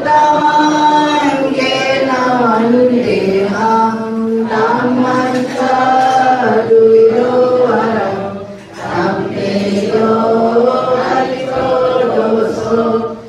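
A group of devotees chanting a Buddhist devotional chant together in unison, in long, held melodic lines, with a short pause for breath about two-thirds of the way through.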